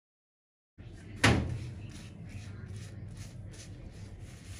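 A sharp knock about a second in, then a run of soft swishing strokes, two or three a second, over a low steady hum: a silicone pastry brush being dabbed across the top of a stack of freshly cooked flatbreads.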